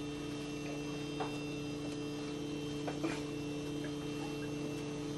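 Steady electrical mains hum, with a few faint knocks as someone climbs a metal ladder, about a second in and twice around three seconds in.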